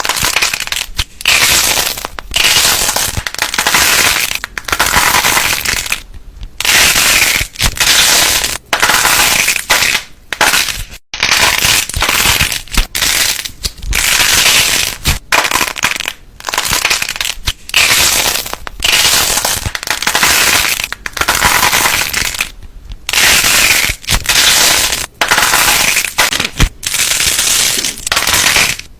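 Slime being squeezed and poked by hand, giving rapid crackling and popping in repeated bursts with short pauses between.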